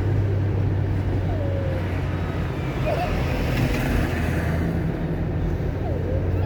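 Car driving on a wet road: a steady low engine and tyre drone with an even hiss, swelling briefly about three to four seconds in.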